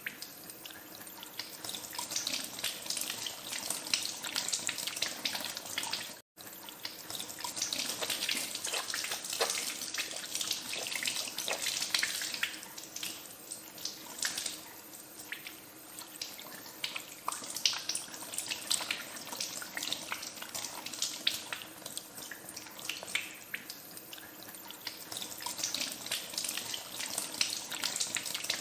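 Water running from a tap into a sink while hands are washed under the stream, with irregular splashing. The sound drops out for an instant about six seconds in.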